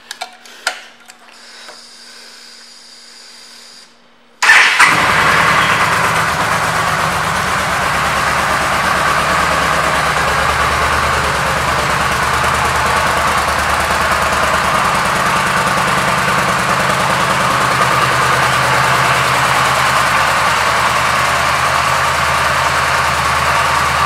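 A 2015 Yamaha V Star 1300 Tourer's V-twin engine is started about four seconds in, catching at once, and then idles steadily.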